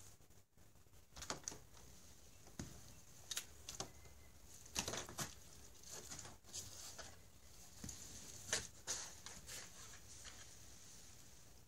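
Cat pawing and shifting about inside a cardboard box: faint, irregular light taps and scratches on the cardboard, in scattered clusters.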